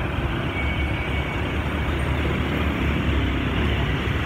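Busy road traffic, mostly motorbikes and scooters with some cars, passing close by with their engines running in a steady, continuous mix.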